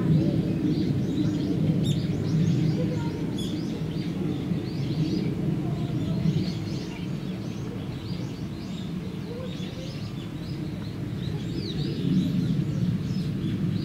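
Small birds chirping in many short calls over a steady low hum of outdoor background noise.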